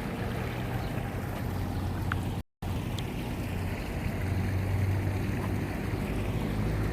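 Garden water fountain splashing steadily, with the audio cutting out for a moment a little over two seconds in.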